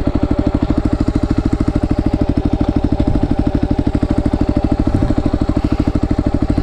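Motorcycle engine idling with a steady, even putter of about a dozen beats a second.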